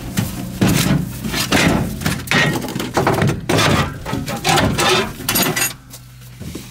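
Irregular knocks, clatter and crackling of hands-on work inside a car's interior, several quick hits in a row, easing off briefly near the end.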